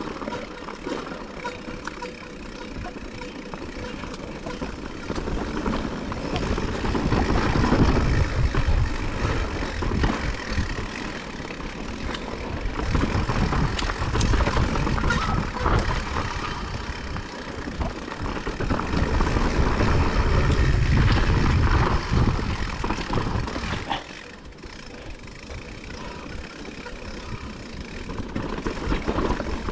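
Blizzard wind gusting hard, buffeting the microphone with low rumbling surges that rise and fall every few seconds over a steady rush of wind-driven snow.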